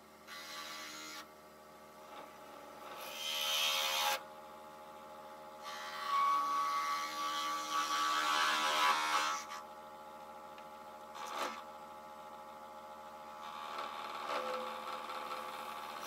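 Lathe running while a ball-turning jig's cutting bit shapes a resin-cast block into a sphere. The cutting noise comes and goes in several passes over a steady motor hum, and there is one sharp click about eleven seconds in.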